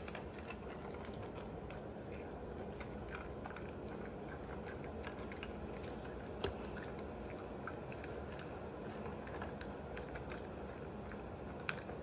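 Italian greyhound crunching dry kibble from a stainless steel bowl: continual chewing with many small clicks, and two louder clicks, one about halfway and one near the end.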